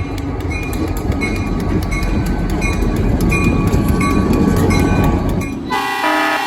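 Diesel freight train running, with rumble and rail clicks and a locomotive bell ringing at an even beat. Near the end the locomotive horn sounds a chord.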